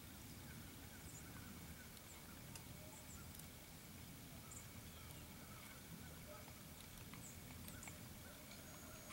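Near silence: faint woodland ambience with scattered, faint high bird chirps.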